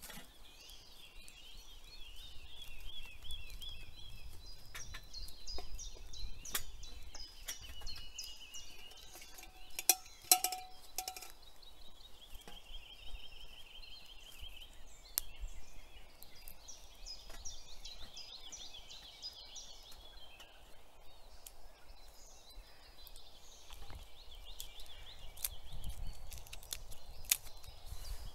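Songbirds chirping and trilling, with scattered small clicks and snaps, and a couple of ringing metal clinks from a camping mug or pot about ten seconds in.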